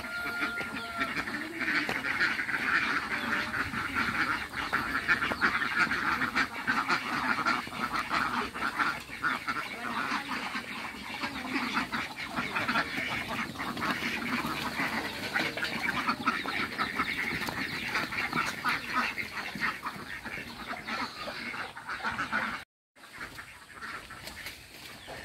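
A large flock of domestic ducks quacking continuously in a dense, overlapping chorus, which breaks off near the end.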